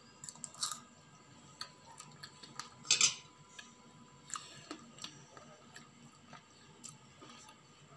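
Steel spoon clinking and scraping against a steel plate while scooping puffed-rice upma: scattered light taps, with a cluster near the start and the loudest clink about three seconds in.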